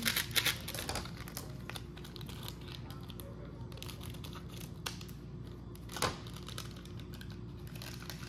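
Small plastic powder packet crinkling as it is handled and cut open with scissors, with one sharp click about six seconds in, over a steady low hum.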